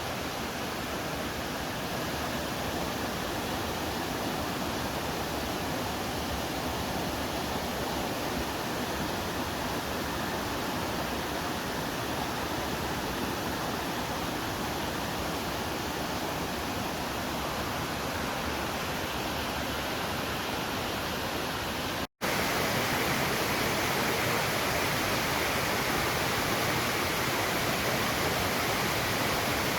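Waterfall rushing steadily. It cuts out for an instant about three-quarters of the way through and comes back slightly louder and brighter.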